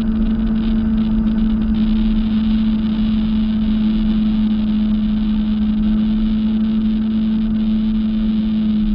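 Jet ski engine running at a steady throttle, holding one constant pitch.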